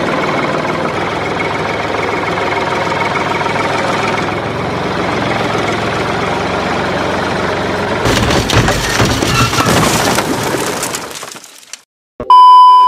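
A steady mechanical running sound like a machine engine lasts most of the way. About eight seconds in it turns into louder crunching and knocking, then fades out. Near the end comes a loud, high, steady beep: the test-pattern tone that goes with colour bars.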